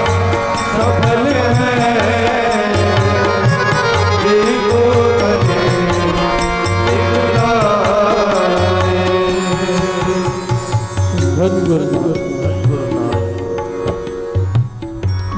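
Sikh Gurbani kirtan music: a sung devotional melody over a steady tabla rhythm and held accompaniment. The music thins out from about ten seconds in.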